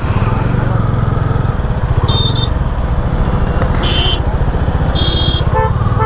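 Bajaj Dominar 400's single-cylinder engine running at low speed in slow traffic, a steady pulsing rumble. Short high-pitched beeps from other vehicles sound three times, and a horn comes in near the end.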